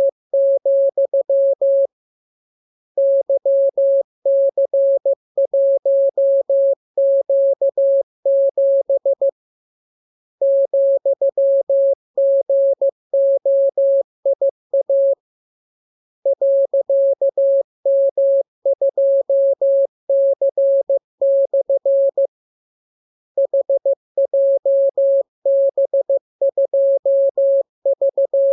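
Morse code (CW) practice signal: a single steady tone keyed on and off in dots and dashes. It is sent in runs of several seconds, with pauses of about a second between them.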